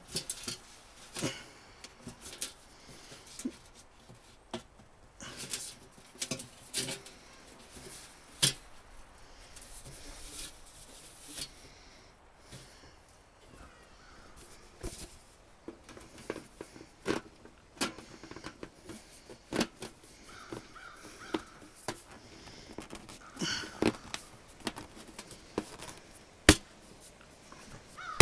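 Thin sheet-metal stovepipe sections and an adjustable elbow being handled and fitted together, giving irregular clicks, knocks and scrapes of light metal. A crow caws briefly about three-quarters of the way through.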